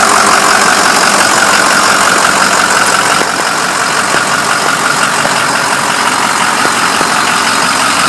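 Ford 6.0 L Power Stroke V8 turbodiesel idling steadily with the hood open.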